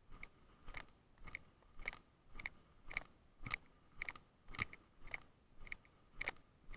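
Footsteps walking along a paved path, a short crunchy step about twice a second in a steady rhythm.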